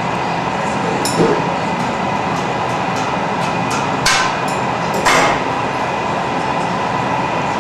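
Steady roar of a glassblowing studio's furnace and burners, broken three times by sharp clinks of metal tools on glass, the last two ringing briefly.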